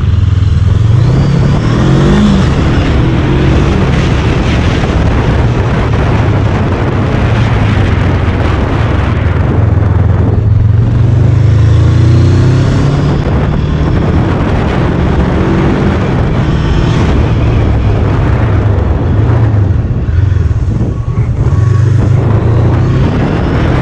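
The engine of a naked-style motorcycle running under the rider, picking up speed with its pitch rising a few times and dipping briefly twice, as at gear changes. Wind rushes over the helmet-mounted action camera's microphone throughout.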